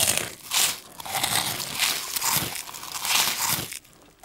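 A crunchy snack being chewed with the mouth closed, close to the microphone: loud, irregular crunching that pauses briefly near the end.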